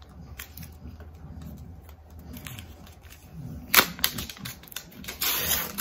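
Plastic protective wrap being handled and peeled off a power adapter: a few small clicks, one sharp click about four seconds in, then a burst of plastic crinkling near the end.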